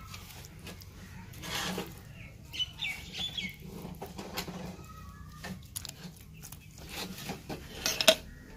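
Birds chirping on and off, with a few short clicks and scrapes from a knife scoring raw chicken drumsticks.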